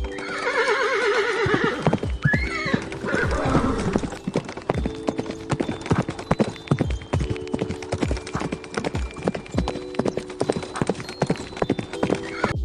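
A horse whinnies, one long quavering call falling in pitch, then its hooves clip-clop in a quick steady rhythm on a hard surface.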